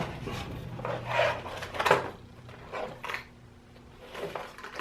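Rubbing and scraping of packaging as fishing lures are handled and taken out of a box: a few short rustles and scrapes, the loudest about one and two seconds in.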